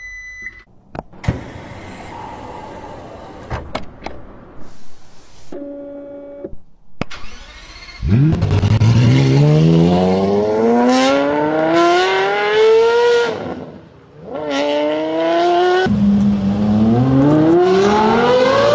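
Car engine accelerating hard through the gears, its note climbing in pitch and falling back at each upshift, about halfway through and again a couple of seconds later. Before that come a few clicks and knocks and a short beep.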